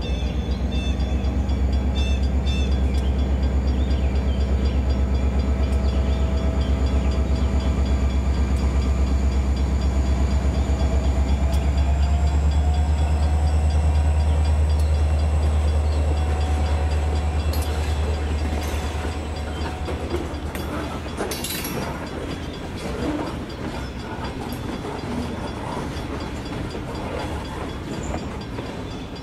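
N scale GP7 model diesel locomotive and its train of autoracks and boxcars running along the track: a steady low hum with fine rhythmic clatter and a thin whine that rises slightly in pitch about halfway through. It turns quieter and more scattered, with a few clicks, in the last third as the train moves away.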